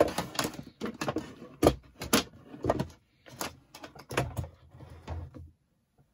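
Craft tools being handled and set down on a hard tabletop: a run of irregular knocks, clicks and clatter that stops about five and a half seconds in.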